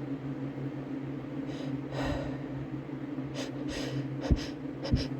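A person breathing and gasping in short, breathy intakes, the build-up to a sneeze brought on by chhinkni, with two short sharp puffs near the end.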